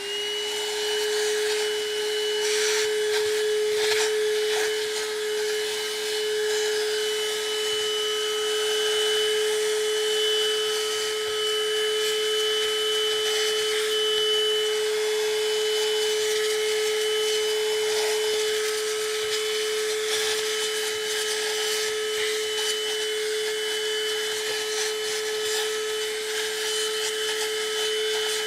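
Tusa cordless handheld car vacuum cleaner switched on, its motor spinning up in the first instant to a steady whine and then running continuously. Scattered small ticks sound through it as sand is sucked up.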